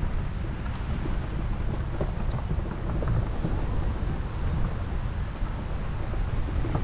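Wind buffeting the microphone: a steady low rumble that constantly rises and falls.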